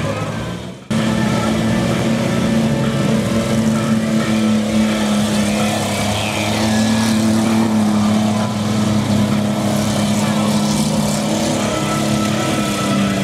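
Demolition-derby minivan engines running in a steady, loud drone, with a brief drop and sudden return just under a second in.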